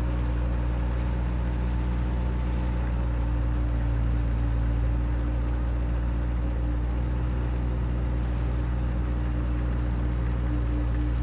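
Bobcat skid-steer loader's engine running steadily at an even speed, a constant low hum.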